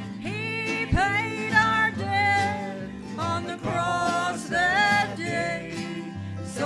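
Country-gospel band music with acoustic guitar backing and a lead melody whose notes slide up and waver, likely an instrumental break since no words are heard.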